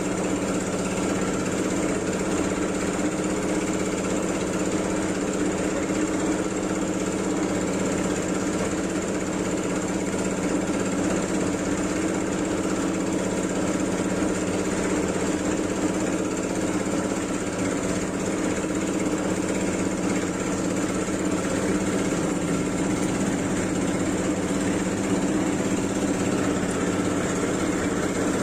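Jet pump running steadily with an even hum, pumping water through a hose into a plastic gallon bottle during a flow test of about 19 litres per minute.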